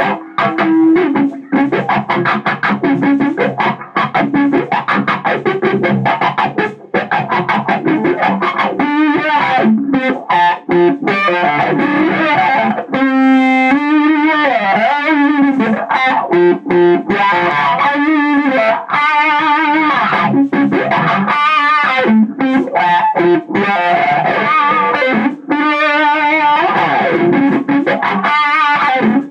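Distorted electric guitar, an ESP, played through a Phantom overdrive pedal into a Jet City 20-watt tube head and a 2x12 cabinet loaded with Eminence Governor and Swamp Thing speakers. It plays fast, snappy chicken-picking single-note runs, with bent and vibrato notes in places.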